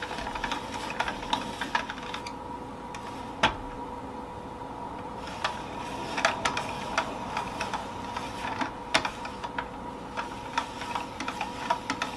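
Hand-cranked plastic countertop spiralizer cutting zucchini into noodles: irregular clicks and knocks from the turning crank and blade, with a sharper knock about three and a half seconds in. A faint steady hum lies underneath.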